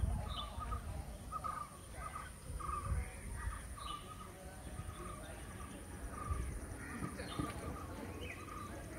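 A bird giving short calls over and over, sometimes several a second, over a low rumble.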